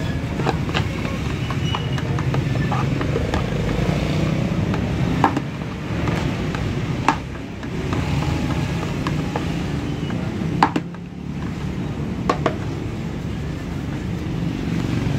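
Plastic scoop scraping grated coconut out of a coconut-grating machine's metal lid into a metal basin, with a few sharp knocks of scoop on metal, over a steady low motor hum.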